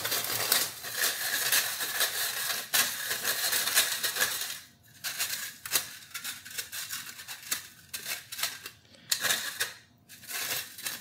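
Granulated sugar being worked through a metal flour sifter by hand, the grains rasping against the wire mesh. A dense continuous scraping for the first four seconds or so, then quicker separate rasping strokes.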